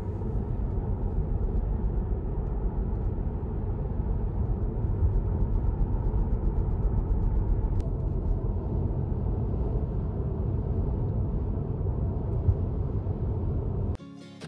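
Road noise inside a moving car's cabin: a steady low rumble of tyres and engine. It cuts off suddenly near the end, when guitar music starts.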